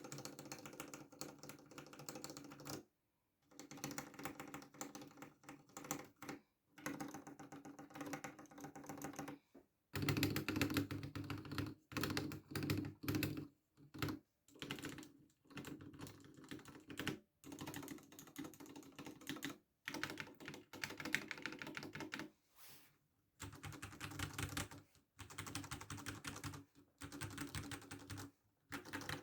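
Ducky One 3 SF mechanical keyboard with Cherry MX Red switches, its larger stabilized keys pressed rapidly in bursts of several seconds with short pauses between. The loudest burst comes about a third of the way in.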